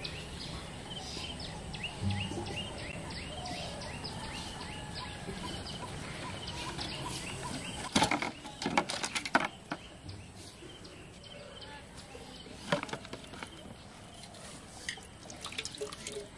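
Birds chirping in quick, repeated short calls. About eight seconds in, a loud run of knocks and clatter as a steel pail is handled, with a few more clicks later.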